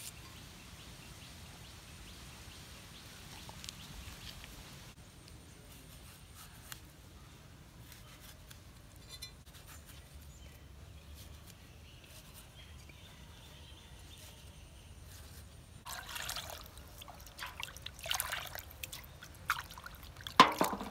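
Water splashing and trickling as raw mutton pieces are washed by hand in a pot, starting about sixteen seconds in, after a long faint stretch with only a few soft ticks.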